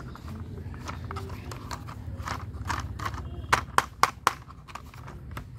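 Hard plastic toy racing car handled and turned over in the hands: a series of light plastic clicks and knocks, with four sharper clicks in quick succession past the middle.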